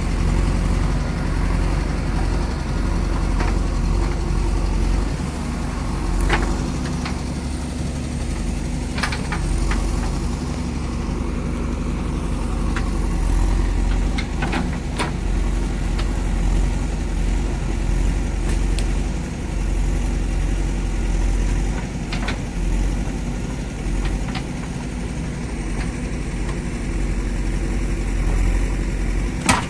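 JCB backhoe loader's diesel engine running steadily, with a few short sharp knocks scattered through.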